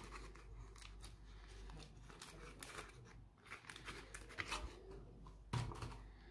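Paper soap wrapper crinkling and tearing as it is peeled off a bar by hand, in short irregular crackles, with a soft knock about five and a half seconds in.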